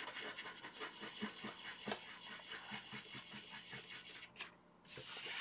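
Soft pastel stick rubbed back and forth on paper, a quick run of faint scratchy strokes, several a second, with a brief hiss near the end.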